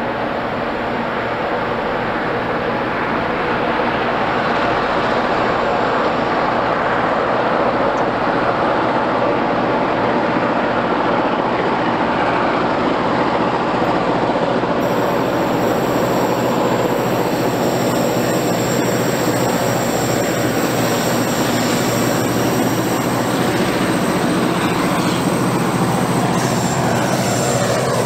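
Two NOHAB MY-class diesel locomotives, with two-stroke EMD engines, working hard at the head of a loaded timber train. Their engine noise grows louder over the first few seconds as the train approaches, and wheel and rail noise joins in as the lead locomotive arrives near the end.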